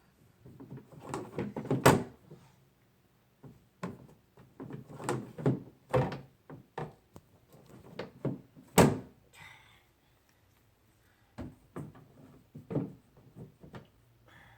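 Irregular knocks, clunks and thuds of toy workbench parts being handled, with small doors or drawers being opened and shut; two knocks, about 2 seconds and 9 seconds in, are the loudest.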